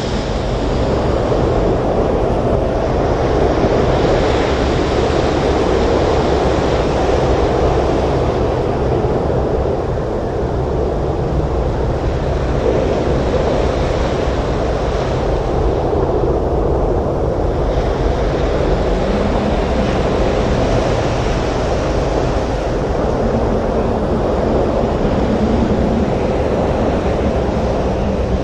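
Storm surf breaking on a beach in strong wind: a steady, dense rush of noise.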